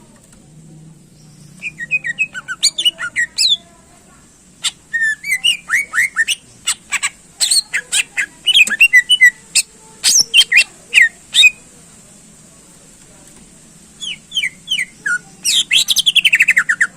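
Cucak ijo (green leafbird) singing in three bouts of rapid, sharp chirping and whistled notes with pauses between; the last bout ends in a fast falling trill. A faint steady high whine runs underneath.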